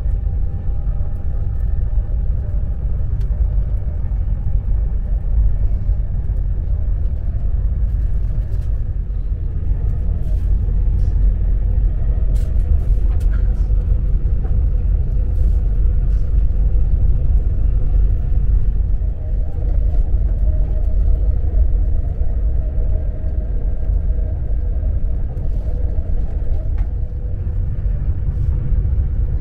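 Steady low rumble of a passenger train at speed, heard from inside the carriage, with a faint steady hum above it and the odd light click.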